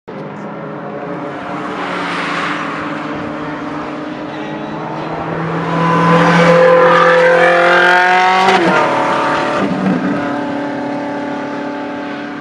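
Ferrari 458 XX race car's V8 engine at high revs as it approaches unseen along the track, the pitch climbing steadily through a gear about six to eight and a half seconds in, where it is loudest, then dropping sharply as the revs fall.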